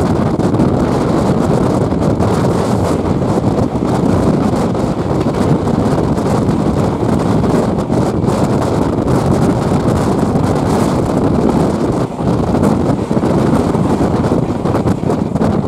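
Steady rumble of a moving passenger train with heavy wind buffeting on the microphone, recorded leaning out from the side of the coach. From about halfway through, a passing train's coaches run close alongside on the next track.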